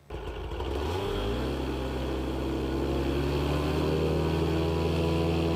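A paramotor engine on a wheeled trike frame starts up suddenly. Its pitch rises over the first second or so, then it runs steadily. It is heard as the soundtrack of a video played over a room's speakers.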